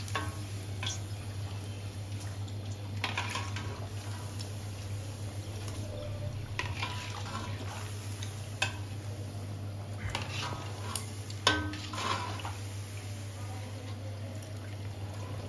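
Metal utensil clinking and scraping against a kadhai every second or two as chicken patties are turned in hot frying oil, over a steady low hum.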